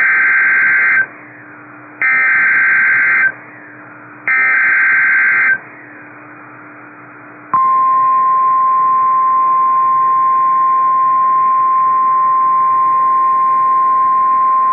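NOAA Weather Radio Emergency Alert System signal: three short harsh bursts of digital SAME header data, each about a second long and two seconds apart, then the steady single-pitch 1050 Hz warning alarm tone starting about seven and a half seconds in. The sequence marks the start of a severe thunderstorm warning.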